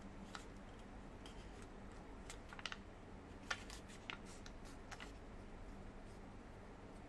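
Sheet of origami paper being handled and folded: faint crisp paper clicks and crinkles, several in the middle, over a low steady hum.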